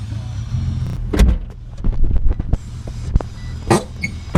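Holden VT Commodore engine running low and steady, with a series of sharp knocks and clunks: a loud one about a second in, a quick cluster around the middle, and a few more near the end.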